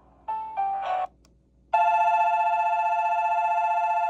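Recorded railway sounds from a SEIKO radio-controlled alarm clock's small speaker: a short three-note chime stepping down in pitch, then, about a second and a half in, a steady electronic platform departure bell that rings on continuously.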